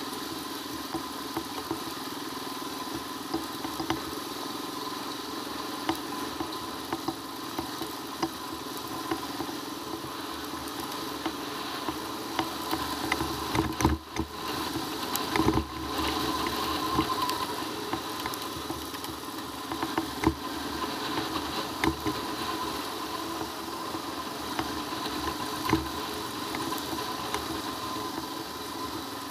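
Royal Enfield Himalayan's single-cylinder engine running at a steady pace while riding a dirt road, with frequent short knocks from the ride over the rough surface and a brief dip and jolt about halfway through.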